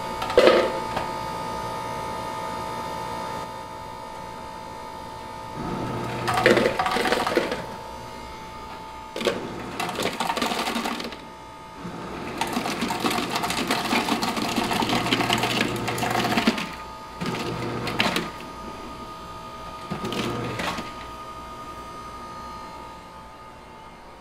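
Hotel ice machine dispensing ice in six short runs, each a burst of motor and mechanical noise lasting one to four seconds, with the longest run near the middle. A steady hum with fixed tones plays underneath.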